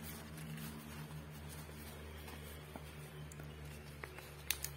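Banana leaf rustling softly as hands roll it into a parcel, with a few sharp crackles near the end. A steady low hum underneath.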